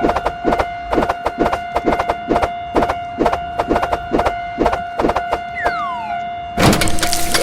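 Japanese railroad crossing warning bell ringing about three times a second over a steady tone. A falling whistle comes in near six seconds, and shortly before the end a loud burst of noise breaks in.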